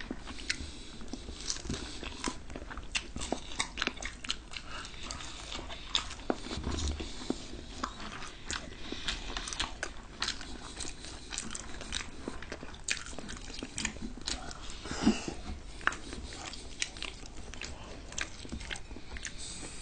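Chewing and mouth sounds of two people eating french fries and cheesy carbonara noodles: many short clicks and crunches, with a louder one about fifteen seconds in.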